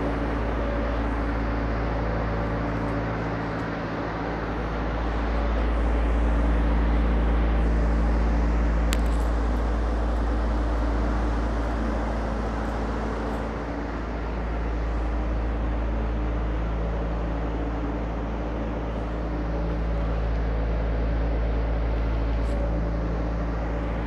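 A steady mechanical hum with several constant tones over a low rumble that swells and fades slowly, with a single sharp click about nine seconds in.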